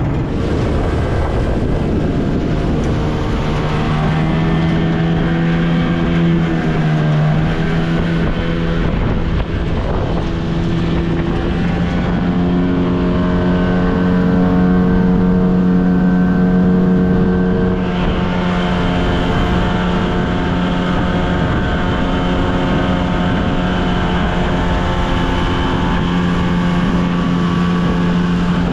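Outboard motor on an aluminium tinny running under way, a steady drone. Its pitch dips briefly about seven seconds in, then settles slightly higher from about twelve seconds on.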